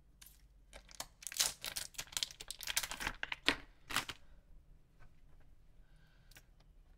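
Thin plastic packaging crinkling and tearing as an ink bottle is handled and pulled from its bag, a quick run of crackles for the first four seconds that then thins to a few small clicks.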